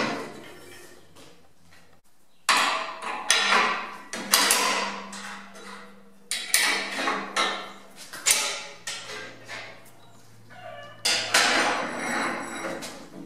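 Steel parts of a homemade bench vise clanking and knocking as it is loosened and adjusted with a spanner and its handle bar: about ten sharp metal knocks, each ringing briefly.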